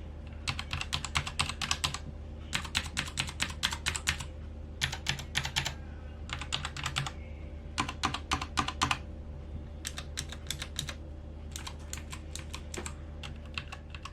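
Typing on a Royal Kludge RK68 mechanical keyboard: fast runs of key clicks in bursts of a second or so, with short pauses between them, over a steady low hum.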